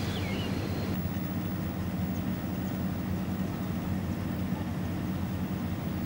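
A steady low mechanical hum, an engine or machine running at an even pace, with no change in pitch.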